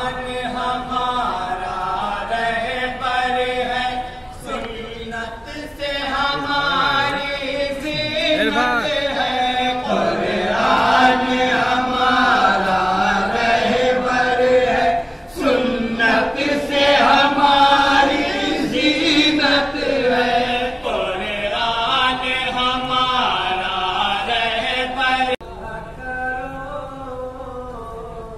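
Men's voices chanting a naat together into a microphone over a public-address system, with long held, wavering notes and a short break about halfway through.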